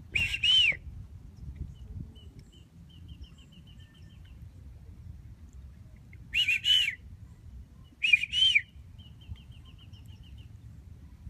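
A bird calling: three loud bursts of paired calls, each a short note that rises and falls in pitch, at the start, after about six seconds and again about two seconds later. Between them a fainter rapid ticking trill repeats twice.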